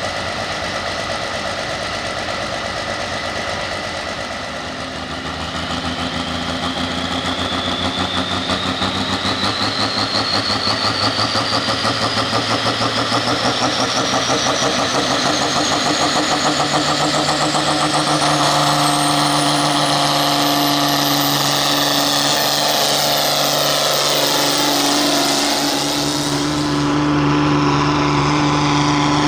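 International pro field pulling tractor's engine running loud and building, with a high whine that climbs steadily in pitch for about fifteen seconds and then holds high.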